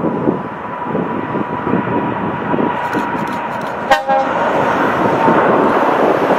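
Boeing 777's twin GE90 turbofans at takeoff thrust as the airliner lifts off: a steady jet roar with a faint whining tone. A brief click about four seconds in, after which the roar is louder and brighter.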